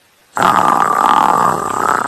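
A long, loud yawn with a drawn-out voiced tone, starting about a third of a second in and lasting nearly two seconds.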